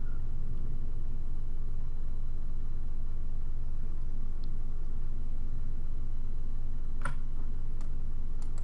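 Steady low hum, with a single computer mouse click about seven seconds in and a couple of faint clicks near the end.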